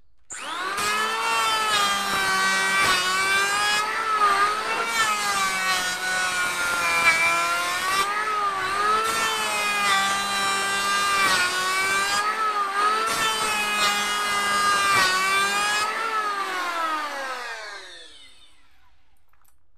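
Maktec electric hand planer starting up and shaving a wooden beam in a fine finishing pass, its motor whine dipping in pitch again and again as the blades bite, then winding down near the end.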